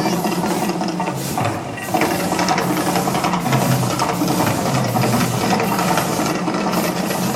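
Loud, rapid rhythmic clatter over a steady low rumble from the Mirage volcano show's eruption.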